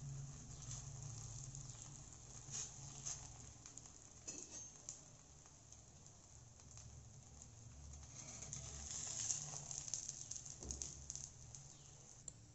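Ghee sizzling and crackling faintly under a stuffed wheat flatbread frying on a cast-iron tawa over a medium flame, over a low steady hum. The crackle grows louder a little past the middle.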